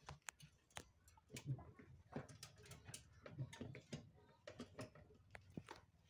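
Faint scattered clicks and light taps as hands handle and reposition the metal evaporator coil inside a frost-free refrigerator's freezer compartment.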